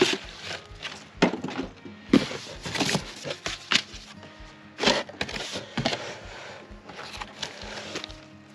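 Cardboard box and packaging being handled: irregular crackles, scrapes and rustles as a chainsaw is lifted out of its packaging.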